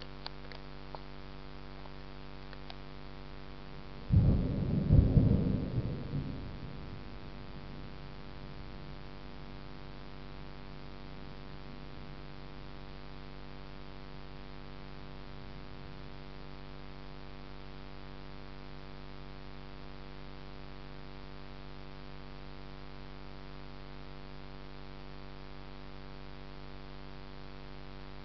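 Thunderclap: a sudden loud crack about four seconds in that rumbles and crackles away over two to three seconds. Under it runs a steady low hum.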